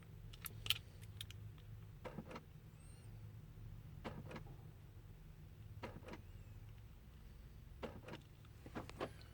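Clicking from a 2014 GMC Sierra 1500 as the key is turned and the truck fails to crank: a few clicks, then pairs of clicks about every two seconds, over a low steady hum. The no-start behaves like a dead battery, though the owner says the battery is not dead.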